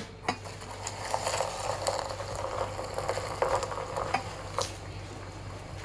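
Hot water being poured over instant noodles in a bowl: a steady crackling hiss.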